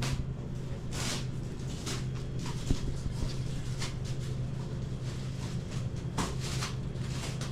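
Steady low hum of background machinery, with scattered light clicks and rustles and one sharper click about two and a half seconds in.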